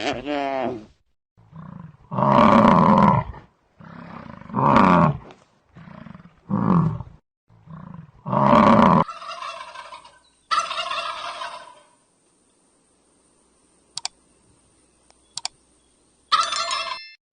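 A string of separate loud animal calls, about six, each lasting around a second, then a quieter call, two sharp clicks, and one more short call near the end.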